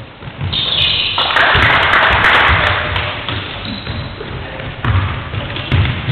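Basketball game on a wooden sports-hall floor: repeated thuds of the ball and players' feet, with a loud burst of noise about a second in, as the free throw goes in.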